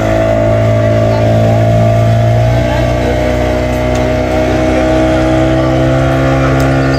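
Outboard motor of a small passenger boat running steadily under way as the boat pulls away from the jetty, a constant engine note.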